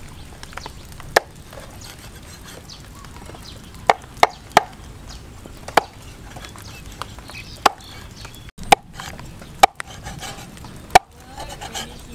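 Steel cleaver chopping raw eels into chunks on a round wooden chopping board: about nine sharp, unevenly spaced chops.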